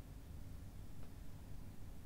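Quiet room tone: a steady low hum with faint hiss, and one faint tick about a second in.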